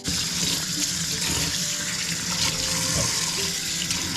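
Kitchen tap turned on and running steadily, water splashing into the sink.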